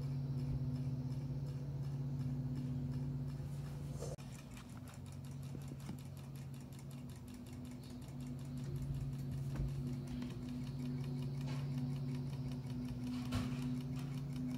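HEXBUG AquaBot hammerhead shark toy's small motor buzzing steadily as it wags the tail, with a fast, even ticking in the hum. The hum dips briefly about four seconds in, then carries on.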